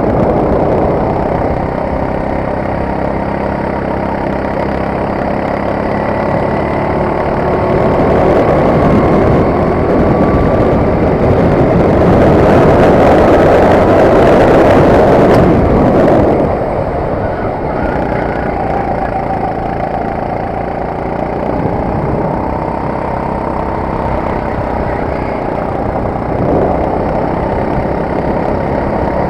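Four-stroke kart engine of a Sodi RT8 rental kart running hard through a lap, heard from on board, its revs rising and falling with the corners and straights. A louder rush of noise builds over the middle few seconds and cuts off suddenly.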